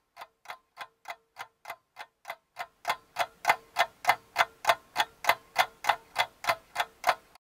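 Clock ticking, about three ticks a second, louder from about three seconds in. It stands for the half hour the ice cream is left to thaw.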